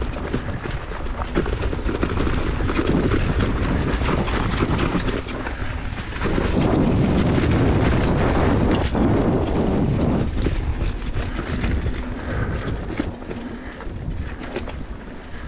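Wind rushing over the microphone and low rumble from a mountain bike riding over rough trail, with many small rattling knocks. The noise swells for a few seconds in the middle.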